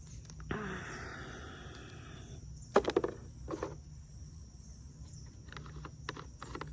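Steady chirring of crickets, with a hiss lasting about two seconds near the start and then sharp clicks and knocks of objects being handled, the loudest two about three and three and a half seconds in.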